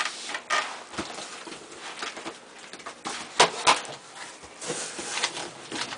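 Packaging being handled as a cardboard shipping box is opened and its contents pulled out: irregular rustling and crinkling with sharp snaps and knocks, the loudest two a little past halfway.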